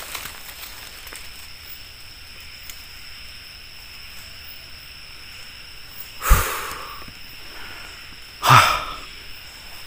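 A person breathes out heavily twice, about two seconds apart, the breath catching the microphone with a low thump on the first. A faint steady high whine runs underneath.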